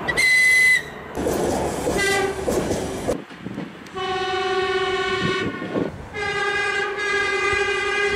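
Electric trains' horns in a series of spliced clips, each cut off abruptly. First comes a short high whistle, then the rush of a passing train with a brief horn note, then two long steady horn blasts; the last runs about three seconds.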